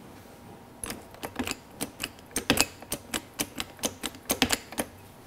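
A quick, uneven series of sharp clicks, several a second, beginning about a second in and stopping near the end. They come from working the hand pump of a fuel-injector pressure tester to force a stuck brake caliper piston out with hydraulic pressure.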